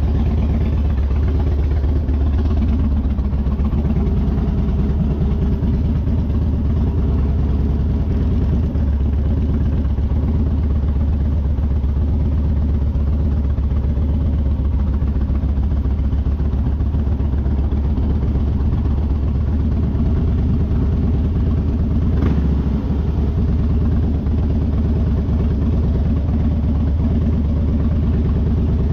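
A vehicle engine idling steadily, with one sharp click about twenty-two seconds in.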